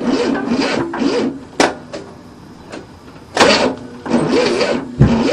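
A 1967 Cadillac V8 that has sat for decades catching and running unevenly during a start attempt, then cutting out. There is a sharp click, a loud burst about midway, and a low thump near the end.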